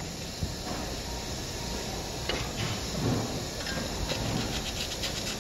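Steady workshop hiss with faint scrapes and light clicks of hand work at the steering knuckle's bearing bore, including a run of quick light strokes near the end.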